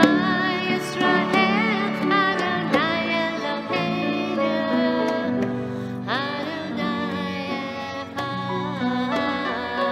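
A woman singing a slow, held melody with vibrato over sustained instrumental accompaniment, with a few light conga drum taps.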